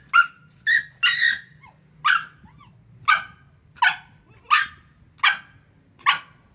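A dog barking angrily: about nine short barks, the first few close together, then roughly one every three-quarters of a second.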